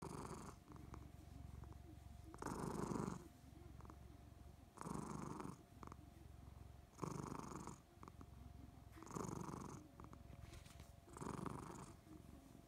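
Somali cat purring steadily while being stroked on the head, growing louder about every two seconds as the purr follows its breathing.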